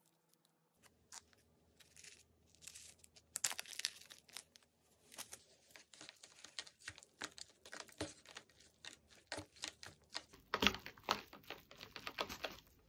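Crinkling and rustling of something being handled, in irregular crackly bursts that grow denser and are loudest about ten to eleven seconds in.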